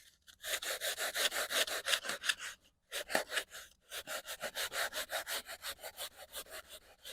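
Sandpaper rubbed back and forth on the edge of a polystyrene foam (fish-box) elevator in quick scraping strokes, about five a second, with a short pause about two and a half seconds in. The hinge bevel is being sanded deeper so the control surface can swing further downward.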